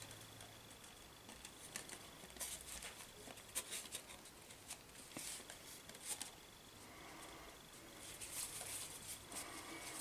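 Glue stick rubbing along the edges of a balsa wood tailplane frame: faint scattered scrapes and light taps, with a longer stretch of rubbing near the end.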